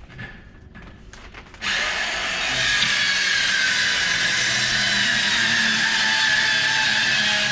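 A power saw starts up suddenly about a second and a half in and runs steadily, cutting a rough piece from a sheet of plywood, after a few light handling knocks.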